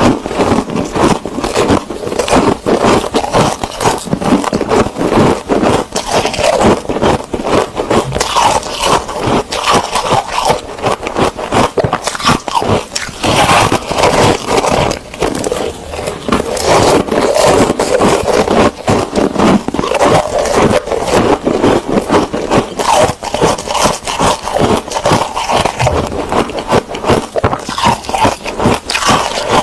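Foam ice (packed freezer frost) being bitten and chewed: many crisp crunches and crackles in quick succession, with no break.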